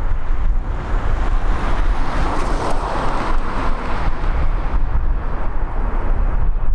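Airbus A320's CFM56 turbofan engines running with a steady roar, a little louder around the middle, on the runway at the start of its take-off. Wind rumbles on the microphone underneath.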